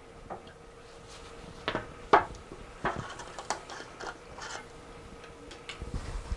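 A plastic acetone bottle and a rag being handled: scattered small clicks and light rustles, the sharpest about two seconds in, over a faint steady hum.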